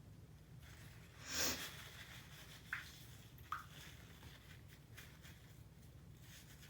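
A woman sniffing sharply through the nose once, about a second and a half in, between induced sneezes. Two brief high-pitched ticks follow a little later.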